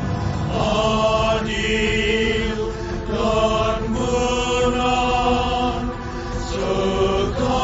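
Music: slow chanted singing with long held notes that change every second or so.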